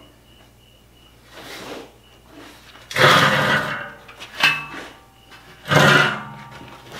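Wire-feed (MIG) welding arc crackling in short bursts as a wide gap in steel is filled. There are two loud bursts about three and six seconds in, with a low mains buzz under the crackle, and two shorter, fainter ones between.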